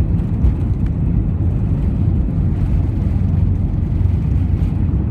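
Steady low rumble of an Airbus A320's jet engines and airflow, heard inside the passenger cabin.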